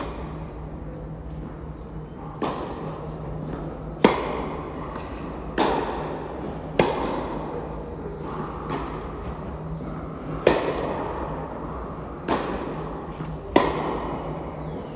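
Tennis rally on an indoor court: tennis balls struck by rackets and bouncing, a sharp pop every second or two, some loud and close, others fainter from the far end, each trailing off in the echo of the large hall. A steady low hum runs underneath.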